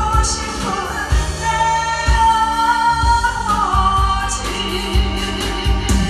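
A woman singing a Korean trot song through a handheld microphone over amplified backing music with a steady beat. She holds one long note in the middle.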